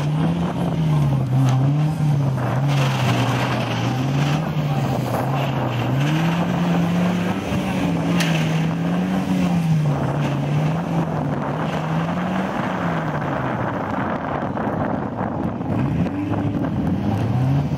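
Off-road 4x4's engine revving up and down over and over, its pitch rising and falling every second or two.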